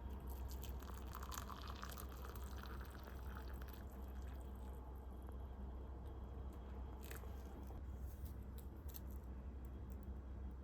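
Quiet indoor ambience: a steady low hum with scattered small clicks and taps.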